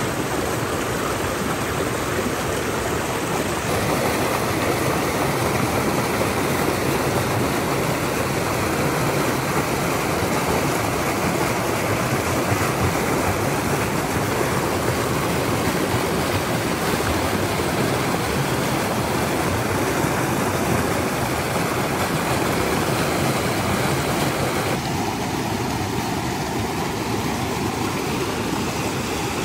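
Rocky mountain creek rushing and splashing over boulders: a steady, loud rush of white water. Its tone shifts slightly about four seconds in and again near the end.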